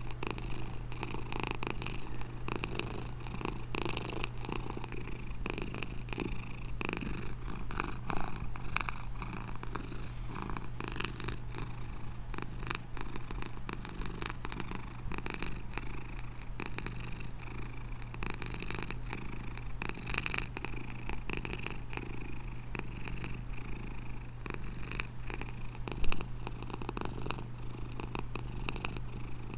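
Domestic cat purring steadily and continuously, with one brief louder moment a few seconds before the end.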